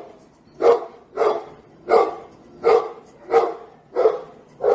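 A watchdog barking an alarm in a steady series: about seven loud barks, roughly one every two-thirds of a second.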